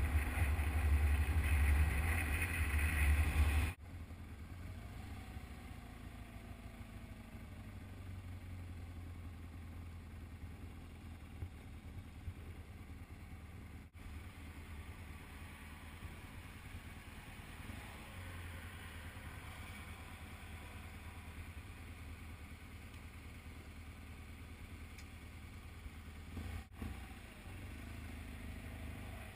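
Motorcycle at highway speed, its engine rumble mixed with loud wind noise for the first few seconds. This then drops suddenly to a quieter, steady low engine rumble as the motorcycle creeps along in slow traffic.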